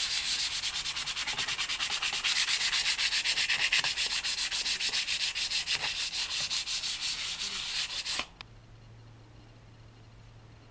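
Fast rhythmic back-and-forth scraping, many strokes a second, that stops abruptly about eight seconds in; a faint low steady hum remains.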